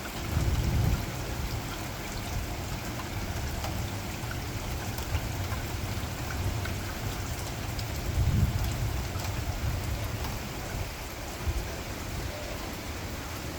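Steady heavy rain falling during a severe thunderstorm. Thunder rumbles low twice: briefly near the start, and more strongly about eight seconds in.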